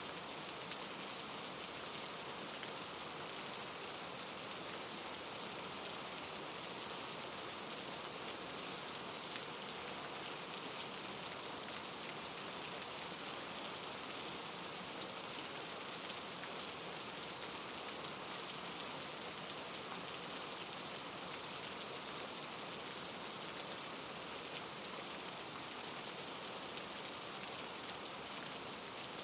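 Steady soft rain falling, a constant hiss with faint scattered drop ticks.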